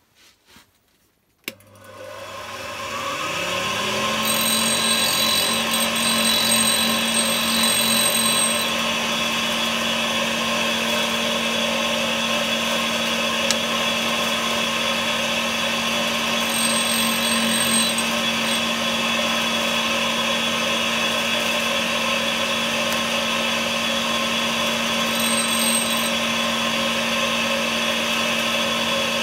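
Homemade tool-sharpening machine with a 100 mm diamond cup wheel switched on: about a second and a half in, its motor spins up over a couple of seconds, rising in pitch, then runs at a steady hum and whir. A thin high whine comes and goes several times.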